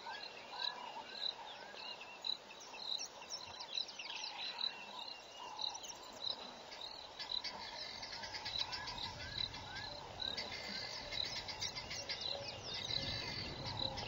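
Bush ambience of birds and insects: a high chirp repeating at an even pace, short rising whistles, and a mix of falling bird calls that grows busier in the second half, with a low rumble joining later.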